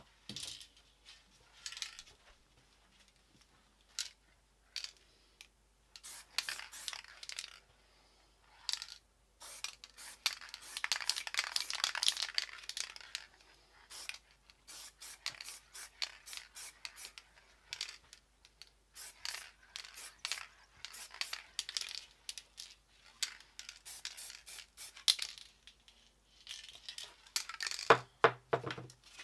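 Spray-paint art work: many short scratchy, rustling handling noises and brief hisses, with a longer hiss about ten seconds in. Near the end come louder clinks and knocks as a spray can is handled at the can rack.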